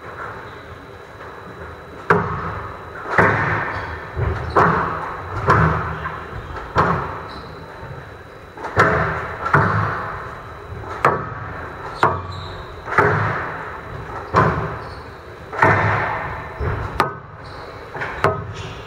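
Squash rally: the hard crack of rackets hitting the ball and the ball hitting the court walls, about once a second starting two seconds in, each crack followed by a ringing echo in the hall.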